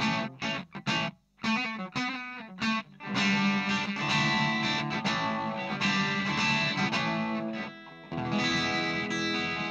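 Gibson SG Standard electric guitar through a Marshall MG10CF combo amp on its overdrive channel. The gain is set low, so the distortion is only slight. A few short, choppy chords are followed by chords left to ring for several seconds, a brief stop, and another chord struck near the end.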